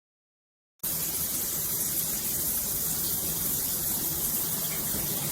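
Water spraying steadily from a large stainless-steel rain shower head, an even hiss that starts abruptly just under a second in.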